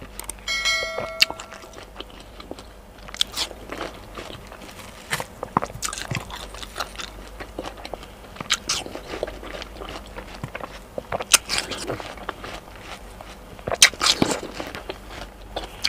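Close-up eating sounds of a person biting and chewing juicy watermelon: irregular wet crunches and mouth clicks, strongest around the middle and near the end. A short chime sounds about half a second in.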